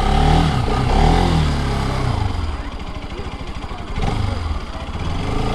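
Motorcycle engine revved twice in quick succession, the pitch rising and falling each time, then dropping back to a steady idle.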